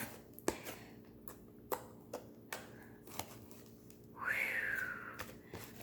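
Fluffy slime being squeezed and worked by hand, giving faint scattered clicks and pops. About four seconds in there is a brief high squeak that falls in pitch.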